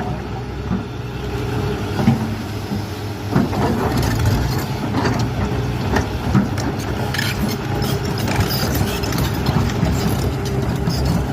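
Excavator's diesel engine running steadily, with scattered short knocks and clatter over the hum.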